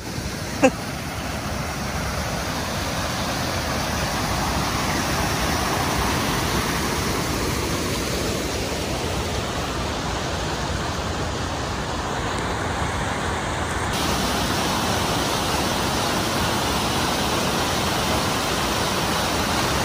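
Mountain creek rushing and cascading over rocks into the lake, a loud steady whitewater roar. One brief knock less than a second in.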